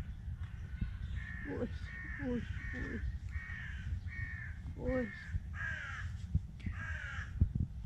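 A crow cawing over and over, about eight short, harsh calls in a row, each falling slightly in pitch, with a steady low rumble underneath.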